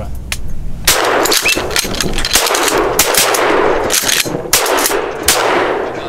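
Volley of shotgun fire from several duck hunters shooting at incoming ducks: a rapid string of shots with echoing tails, starting about a second in and lasting some four seconds.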